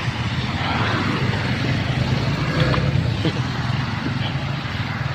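Heavy rain mixed with hail falling hard: a steady hiss with a low rumble underneath and a few faint ticks.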